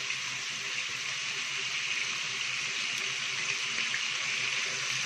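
Chicken pieces searing skin-side down in hot oil in a frying pan, a steady sizzle as they brown.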